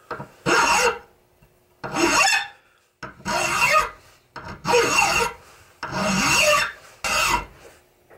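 Nicholson mill bastard file rasping across the steel face of a ball peen hammer head clamped in a vise, in about six slow, even strokes with short pauses between. The filing dresses down the mushroomed, chipped edge of the hammer's face.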